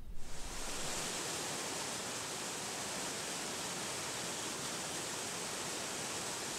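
Rushing water of a shallow river pouring over rocks in rapids: a steady, even hiss that cuts in suddenly.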